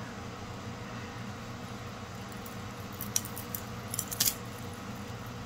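Metal costume-jewelry chains and rhinestone pieces clinking lightly as they are handled: a couple of small clinks about three seconds in and a short cluster about four seconds in, over a steady low hum.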